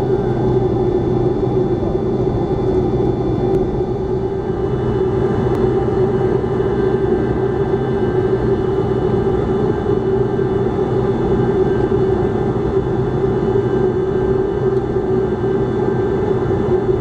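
Tupolev Tu-154B's three rear-mounted Kuznetsov NK-8-2U turbofan engines running steadily as the airliner taxis. The engines make a constant hum with a steady droning tone, heard inside the passenger cabin.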